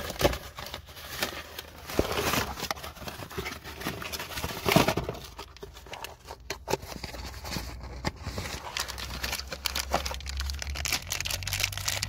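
A cardboard mailer being torn open by hand, with irregular rips and crinkling of the packaging. The loudest rip comes about five seconds in.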